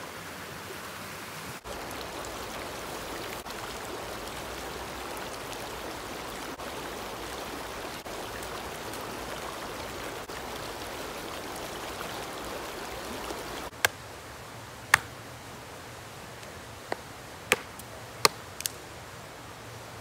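Steady rush of running water for most of the stretch. It cuts off abruptly about fourteen seconds in to a quieter background, broken by about six sharp, separate clicks or snaps.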